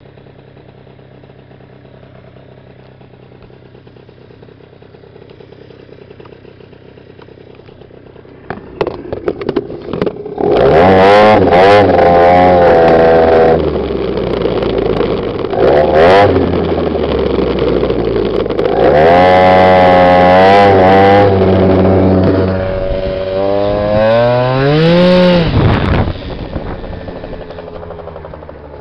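Yamaha BWS scooter's tuned two-stroke engine, with a Stage6 Racing kit and Athena Evo exhaust, running quietly at first. From about ten seconds in it revs hard in several long pulls, its pitch climbing and falling, the last falling away near the end.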